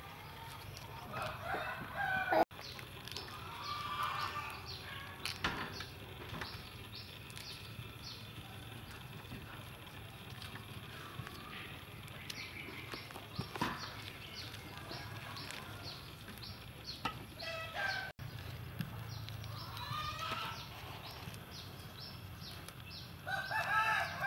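Roosters crowing several times, each crow about a second long, over a steady low background hum.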